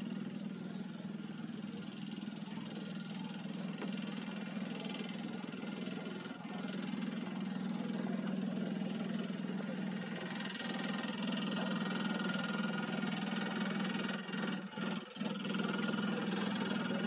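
An engine running at a steady drone, getting somewhat louder about seven seconds in.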